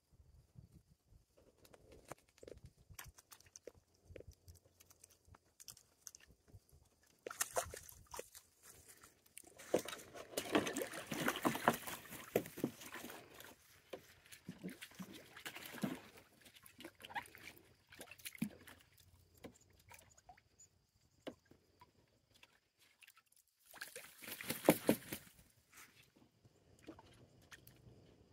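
Toulouse and Emden geese bathing in shallow water, splashing. Several bursts of splashing, the longest in the middle and a short one near the end, with small drips and patters between.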